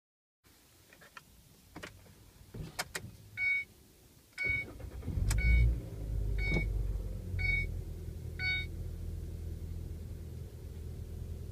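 Inside the cabin, a 2013 Ford Transit Connect's 2.0-litre four-cylinder engine starts about four and a half seconds in and settles into a very quiet, steady idle, after a few sharp clicks. A dashboard warning chime pings six times, about once a second, across the start.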